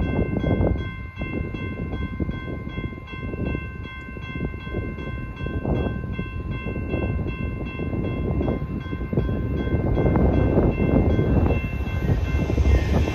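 Railroad grade-crossing warning bell ringing steadily with the gates down, over low, wind-like rumbling. The noise of an approaching train builds during the last few seconds and gets much louder right at the end.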